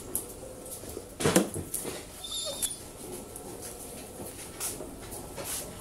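Dog whimpering as it begs for food, with a thin high whine a couple of seconds in and one short sharp sound about a second in.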